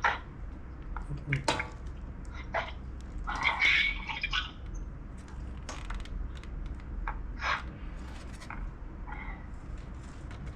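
Scattered small clicks, taps and brief scrapes of plastic parts being handled and pressed together as a laptop's back cover is refitted, over a steady low hum.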